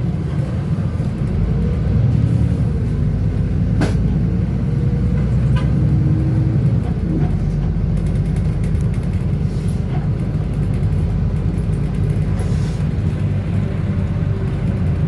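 Steady low rumble of a moving bus, engine and road noise heard from inside the cabin. A sharp click comes about four seconds in and a fainter one a little later.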